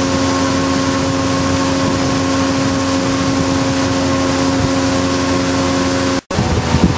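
Motorboat engine running steadily with a fixed hum, under the rush of wind and water while the boat is under way. It cuts off abruptly about six seconds in and is followed by uneven gusts of wind buffeting the microphone.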